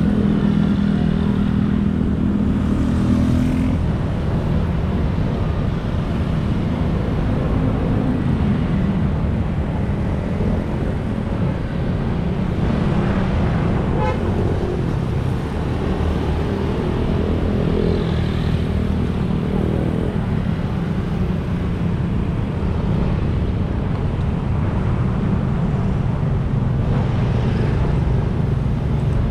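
Steady city road traffic: cars and motorbikes passing continuously, a dense engine and tyre rumble that swells and eases as each vehicle goes by.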